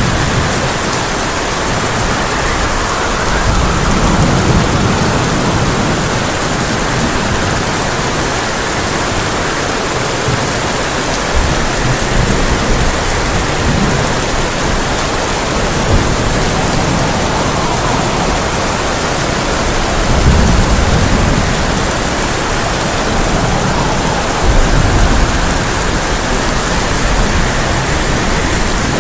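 Heavy rain pouring steadily onto a tin roof, with low rolls of thunder that swell and fade several times, loudest about two-thirds of the way through.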